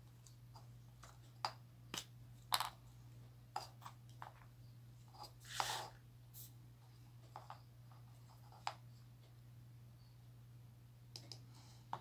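Light, scattered clicks and taps of small plastic craft pieces being handled and set down on a work surface, with one longer scrape or rustle about halfway through, over a steady low hum.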